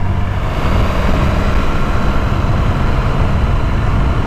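Cruiser motorcycle engine running steadily, with a heavy low rumble, as the bike sets off.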